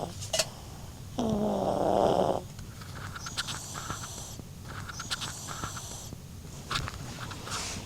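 Maltese dog snoring in its sleep: one loud, low snore a little over a second in, then softer, higher, wheezy breaths in and out.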